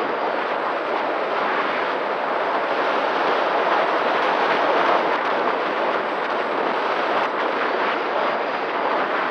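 Steady, loud rush of airflow over an onboard action camera's microphone on an electric RC flying wing in flight, with a faint steady hum from the electric motor and propeller underneath.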